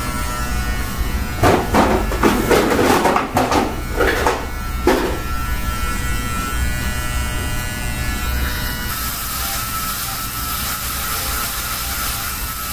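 Electric shaver running with a steady hum, used to shave a head down to the bare skin. A few scratchy rustling strokes come in the first five seconds. From about nine seconds in the sound turns brighter and hissier as the shaver is run over the scalp.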